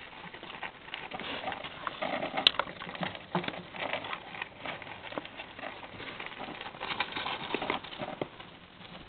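Baby hamsters scrabbling and rustling in wood-shaving bedding, with irregular small clicks and scratches and one sharper click about two and a half seconds in.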